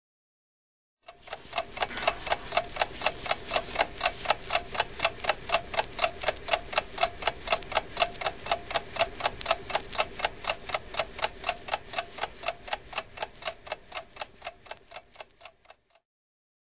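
Fast, even ticking, about five ticks a second, like a clock. It fades in about a second in and dies away near the end.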